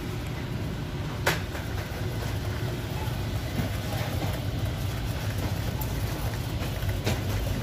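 Small wheeled shopping cart rolling over a store floor, a steady rumble, with a sharp click about a second in and another near the end.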